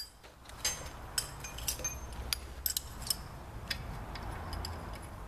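Irregular light metallic clicks and clinks, about a dozen: a bolt and washer being handled and fitted through the holes of two steel harvester chain bars laid one on the other.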